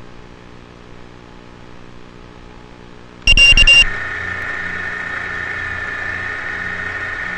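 A quick burst of about three high beeps a little over three seconds in, then the steady high whine of the racing quadcopter's Racerstar BR2205 2600KV brushless motors spinning at idle once it is armed. Before the beeps there is only a faint low hum.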